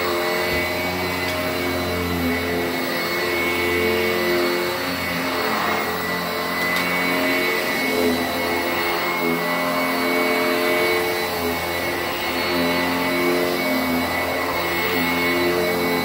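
Sanitaire 886E commercial upright bag vacuum running on carpet: a steady motor whine, its lower hum shifting every second or two as it is pushed back and forth.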